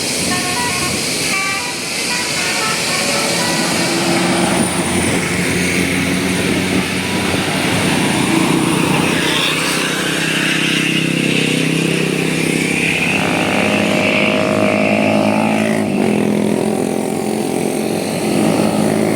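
A bus's multi-note telolet horn plays a quick run of tones for the first couple of seconds, then the engines of passing road vehicles run loud, their pitch rising and falling as they go by.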